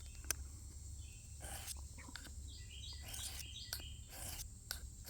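Knife blade drawn in short strokes across the fine side of a double-sided diamond file, a light, dry scraping that repeats several times from about a second and a half in. A bird chirps briefly about halfway through.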